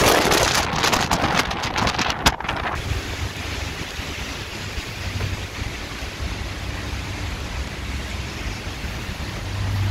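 Storm wind blowing across the microphone: loud, choppy buffeting for about the first three seconds, then a steadier, quieter rush of wind.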